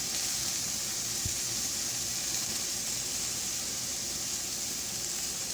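Pork barbecue skewers sizzling on a grill, a steady high hiss.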